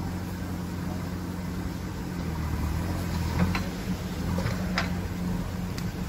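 Diesel engine of a JCB 4CX backhoe loader running steadily while it works the arm, with a few short, sharp knocks around the middle and near the end.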